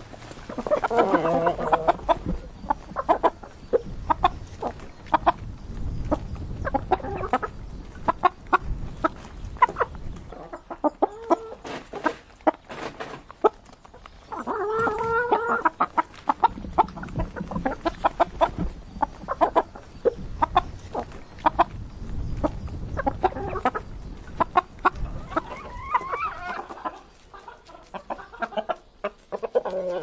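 Chickens feeding: many quick, sharp pecking taps, with clucking calls now and then.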